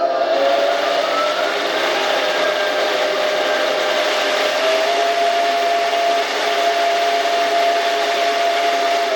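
Heng Long RC tank's TK-22 sound unit playing an M1A2 Abrams gas-turbine engine sound through its small speaker: a steady rushing hiss with a whine that rises a little in the first second or two and then holds.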